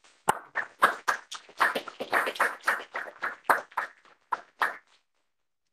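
A small group clapping, a thin round of applause of separate claps, about four a second, that dies away near the end.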